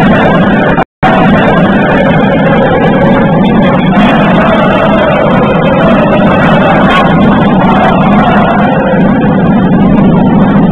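Loud, steady din of gymnasium ambience during a basketball game, overloaded and without distinct events, cut by a brief dropout about a second in.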